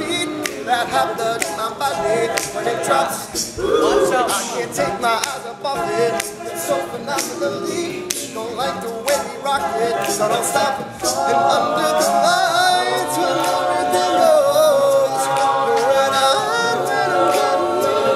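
All-male a cappella group singing in close harmony over a steady percussive beat, with the voices growing fuller and louder about two-thirds of the way through.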